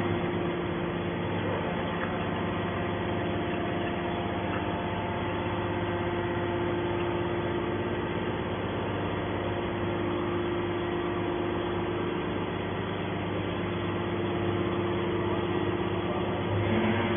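Hydraulic scrap metal baler's power unit (electric motor and pump) running with a steady hum.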